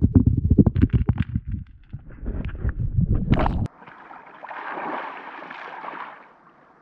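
Muffled underwater thumping and rumbling as the camera moves through river water. About three and a half seconds in, it switches abruptly to the open-air rush of river water splashing at the surface, loudest about a second later and fading near the end.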